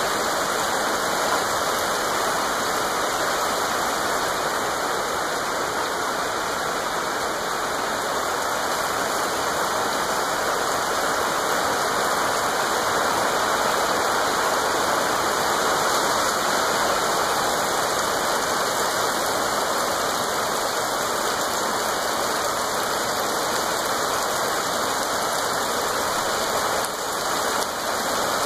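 Steady rain falling on grass and trees: an even, unbroken hiss.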